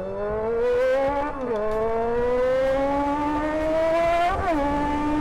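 Kawasaki Balius ZR250's high-revving 250 cc inline-four engine, which the rider says has no exhaust on it, pulling hard through the gears. Its high-pitched note climbs, drops at an upshift about a second and a half in, climbs again, and drops at a second upshift near the end.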